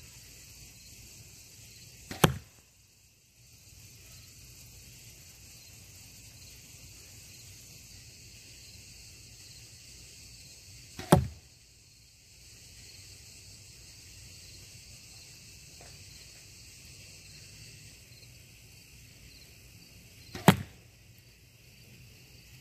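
Three arrow shots about nine seconds apart. Each is a faint snap followed a fraction of a second later by a sharp, loud smack as the arrow strikes the sand-filled bags. Insects chirr steadily in the background.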